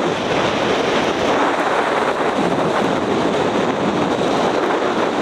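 Strong gale-force wind blowing across the microphone over lake surf, with rows of waves breaking on the shore; a loud, steady rush of noise.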